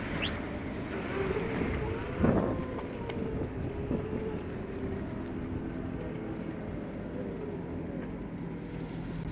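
Motor vehicle engines running in slow traffic on a wet street, with tyre noise on the wet road and wind on the microphone. A single sharp knock about two seconds in is the loudest sound.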